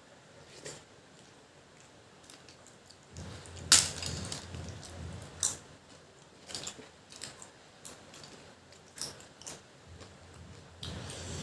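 Close-up eating sounds: chewing with a series of sharp, irregular crunches and clicks, the loudest about four seconds in.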